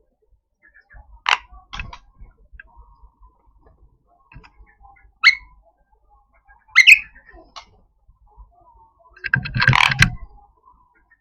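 Javan myna giving harsh, rasping 'cukrek' calls: short single calls about a second in and around five and seven seconds in, then a longer, louder scratchy burst near the end.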